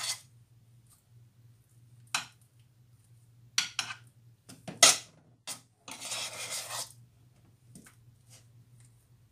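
A metal spoon clinking and scraping against a stainless steel pot and a glass Pyrex baking dish as mashed potato is scooped out and spread over the top layer. There are a few sharp clinks, the loudest about five seconds in, and a scrape lasting about a second near the middle.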